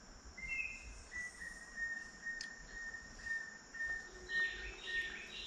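Tropical forest ambience: a steady high insect hiss, a high note repeated about twice a second, and from about four seconds in, bird calls stepping down in pitch, several overlapping.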